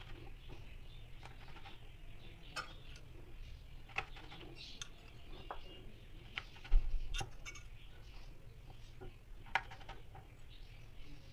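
Small metal cookie cutters pressed through dough, tapping and clicking against a wooden board: irregular, scattered sharp taps, with one duller, louder knock a little past halfway.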